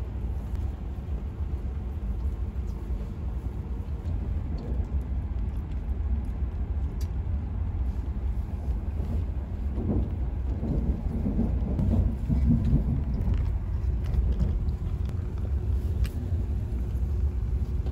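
Steady low rumble inside the cabin of an E7 series Shinkansen, swelling a little about two-thirds of the way through.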